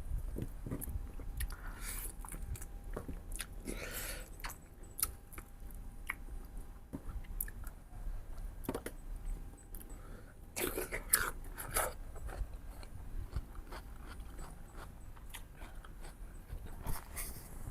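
A person chewing and biting mutton ribs close to the microphone, with wet mouth sounds and occasional crunches; a louder run of bites comes about ten to twelve seconds in.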